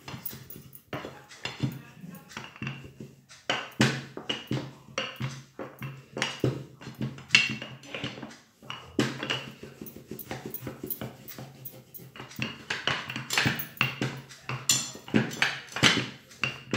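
Wooden rolling pin rolling dough thin on a tabletop: irregular knocks, rumbles and scrapes as it is pushed back and forth, over a steady low hum.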